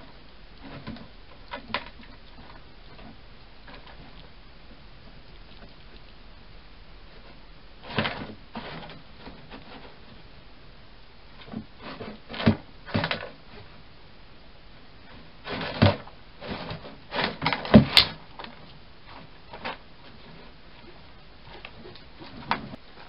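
Hedgehog at a cardboard feeding box, making scattered clicks, knocks and scrapes in short clusters, the loudest run of them about two-thirds of the way through.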